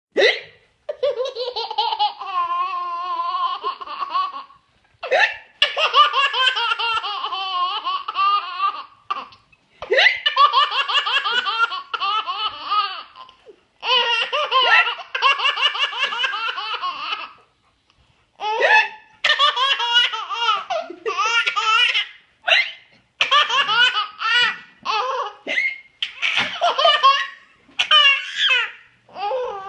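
A baby laughing hard in repeated high-pitched bouts of a few seconds each. Short, sharp hiccups from the mother fall between the bouts and set each one off.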